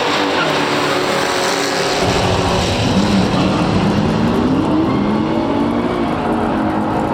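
Classic muscle car V8 engines running hard under load, pitch climbing and dropping back as gears change, with a deeper rumble joining about two seconds in.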